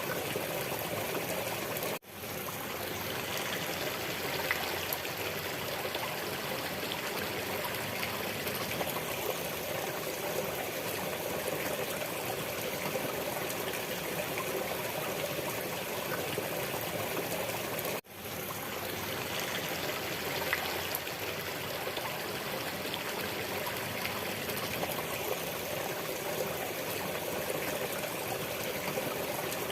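Steady flowing water, like a stream trickling. It drops out briefly twice, about sixteen seconds apart, and fades back in each time.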